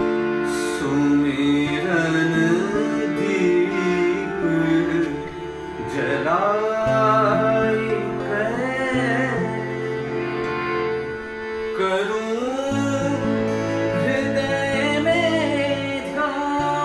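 A man singing a devotional bhajan in a slow, gliding, ornamented line over a harmonium holding sustained notes that change in steps.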